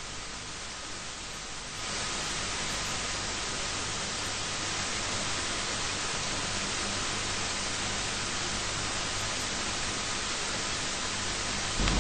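Steady hiss of static, an even noise with no voices or distinct events in it, stepping up a little in level about two seconds in.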